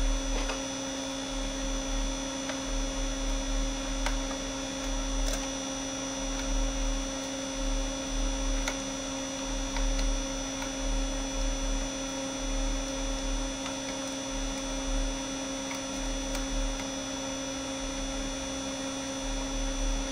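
Steady electrical hum and buzz from an amplifier test bench, with several steady pitched tones, over a low throb that pulses on and off unevenly. A few faint clicks.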